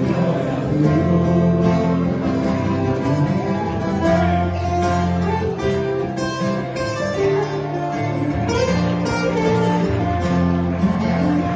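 Two acoustic guitars playing an instrumental passage of a ballad with no singing, strummed chords under a picked melody line.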